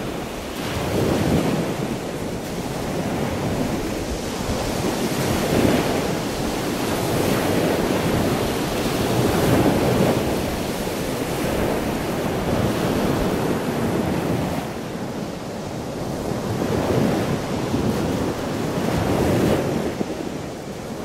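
Ocean surf breaking and washing up the beach, mixed with the rush of the storm-swollen Carmel River pouring out through its mouth, swelling and easing every few seconds. Wind buffets the microphone.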